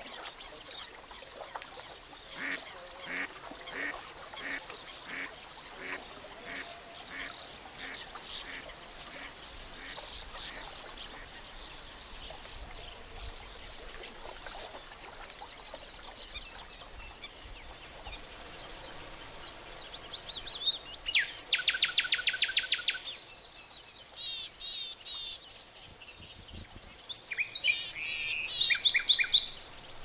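Wetland birdsong soundscape: a duck quacks in a run of about a dozen calls, roughly two a second, over a bed of fainter bird calls. From about twenty seconds in, a bird gives a loud rapid trill, the loudest sound here, and more chirping bird calls follow near the end.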